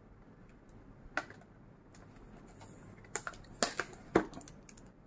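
Thin clear plastic blister packaging clicking and crackling as fingers pick tape off it: scattered sharp clicks, with a cluster of louder ones in the last two seconds, the loudest just after four seconds in.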